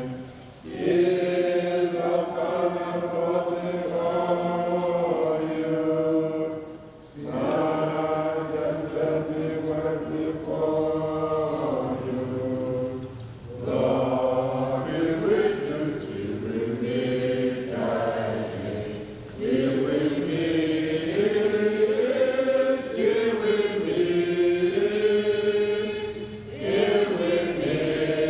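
A group of voices singing a chant-like hymn in phrases of about six to seven seconds, with short breaks between the phrases.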